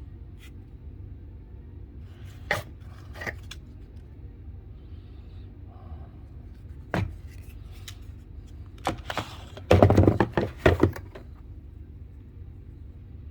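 Sharp clicks and knocks from handling a GHK Glock 17 airsoft pistol, a few scattered at first and then a quick run of louder clacks about two thirds of the way through, over a steady low hum.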